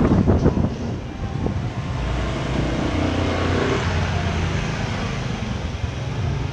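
Street traffic: small motorcycle engines running steadily, with a brief knock or two at the start.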